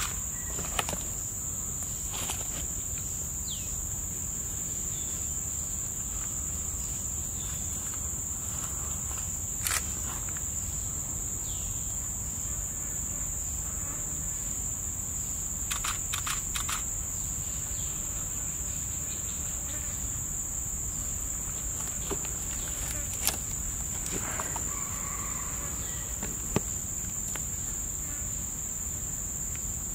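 Steady, high-pitched drone of an insect chorus held on one pitch, with a few short clicks scattered through it.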